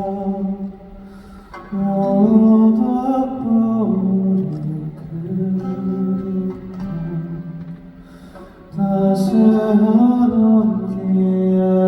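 Live music: a male voice singing a wordless melody in long phrases that glide in pitch, with short pauses between phrases, over soft accompaniment.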